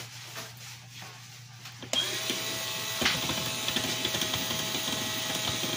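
Small pink cordless screwdriver starting up about two seconds in and running steadily with a motor whir, its bit turning a screw in a wooden cabinet drawer front.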